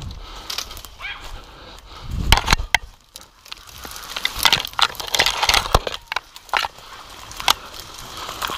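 Dry twigs, brambles and reeds snapping, crackling and scraping against the camera while pushing through a dense thicket, with hunting dogs barking.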